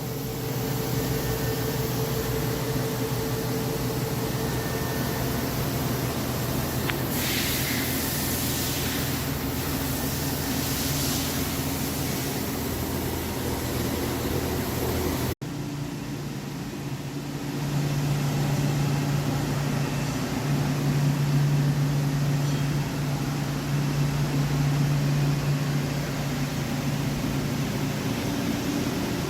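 CNC lathe running while machining a spur pinion shaft: a steady machine hum, with a hissing wash from about a quarter to nearly halfway through. The sound cuts off abruptly about halfway and resumes at once, with a stronger, deeper hum.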